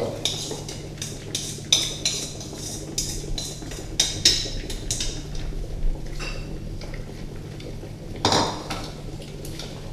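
Light knocks and clinks of a plastic bowl against a stainless steel mixing bowl as powdered sugar is poured and tipped out, a scattered series of short taps with a louder knock near the end, over a steady low hum.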